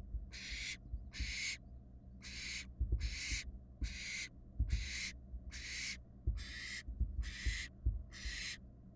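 Barn owl fledglings giving rasping, hissing begging calls, one after another about two a second, with low thumps and scuffing of movement underneath.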